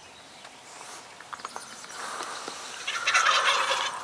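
Wild turkey tom gobbling: one loud, rapid rattling gobble about three seconds in.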